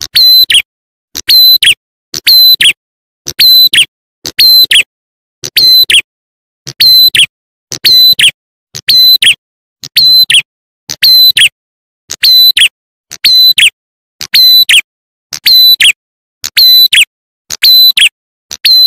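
Looped lure call (suara pikat) of a ciblek klawu / prenjak bird: short, sharp, high chirps in quick bursts about once a second, each burst ending in a note that slides down in pitch.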